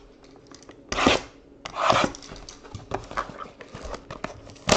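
A trading-card pack being pulled out of a cardboard box and handled: cardboard rubbing and scraping, with two louder rasping rubs about one and two seconds in, then a few light taps.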